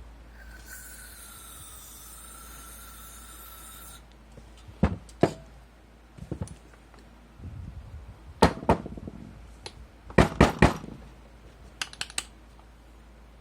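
Metal parts of a partly dismantled Bosch GBH2-23REA rotary hammer knocking and clinking as they are handled, in a dozen sharp knocks, several in quick pairs, from about five seconds in. Before that, a faint steady high whine lasts about four seconds.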